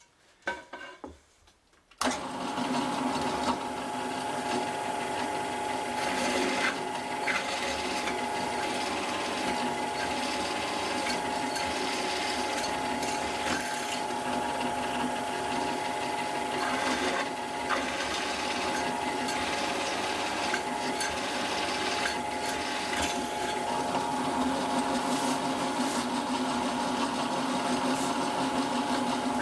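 Electric drill starting about two seconds in and running steadily at constant speed, drilling tapping holes in aluminium, with a few faint clicks.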